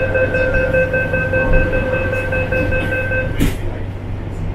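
MTR C-train door-closing warning: a rapid, high beeping tone for about three seconds over the carriage's steady low hum, then the sliding doors bang shut about three and a half seconds in.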